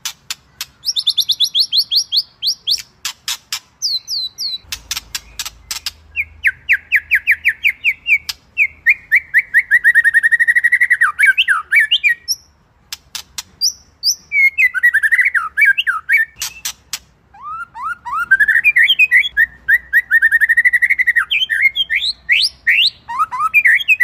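White-rumped shama (murai batu) singing a varied 'isian' song: fast trills of quick repeated notes, sharp clicking notes and sliding whistled phrases in loud bursts, with two short pauses about halfway through.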